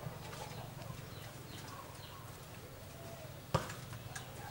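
Knife scoring hot dog sausages over a wooden chopping board: mostly quiet under a low steady hum, with one sharp knock of the knife on the board about three and a half seconds in.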